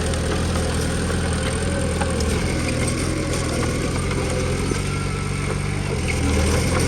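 Bulldozer's diesel engine running steadily. Its note shifts about two-thirds of the way in and grows a little louder near the end.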